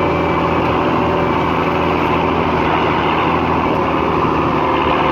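Mercedes-Benz Unimog truck's engine running at a steady pace while driving along a grassy track, heard from on top of the truck's roof.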